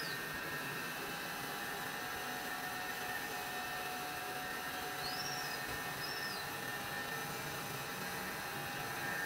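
Crankshaft grinding machine running with a tractor crankshaft mounted, a steady whirring hum with two high whine tones held throughout. Two short high chirps that rise and fall come about five and six seconds in.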